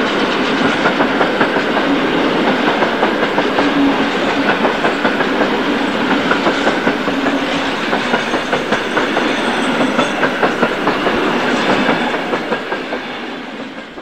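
Freight wagons of a sound-equipped HO model train rolling past with a rhythmic clickety-clack of wheels over rail joints, about three beats a second. It fades away over the last two seconds as the train moves off.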